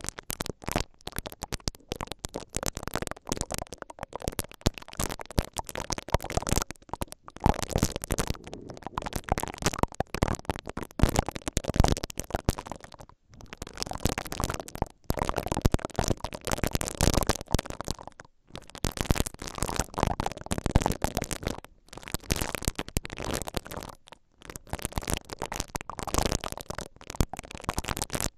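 Two silicone bristle ear picks (caterpillar-style brushes) rubbing and twisting inside the foam-lined capsules of a stereo microphone. The result is a close, dense crackling and scratching in long runs of strokes, broken by brief pauses.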